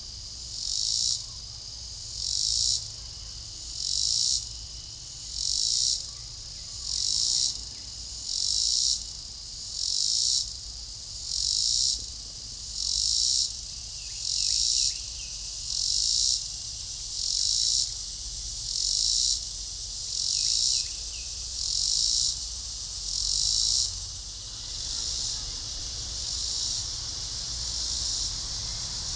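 Dusk insect chorus: a high buzzing that swells in a regular pulse about every second and a half, then blurs into a steadier drone near the end.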